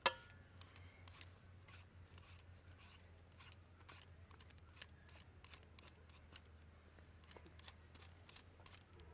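Handheld vegetable peeler scraping strips of skin off a green papaya in short, faint strokes, about two or three a second.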